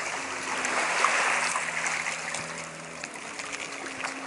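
Steady rush of sea water washing over a pebble beach, with a faint low steady hum underneath.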